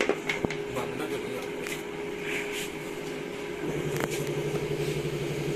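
Sanrex MMA-400 DC inverter welding machine humming steadily at idle between welds, with a few light clicks in the first second or two. About two-thirds of the way through, a lower, engine-like rumble joins the hum.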